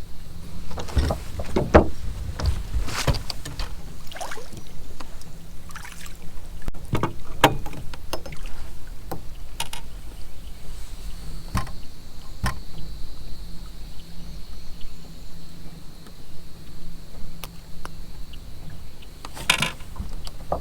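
Sounds aboard a fishing boat: scattered knocks and clicks over a steady low hum, with a faint steady high whine joining about halfway through.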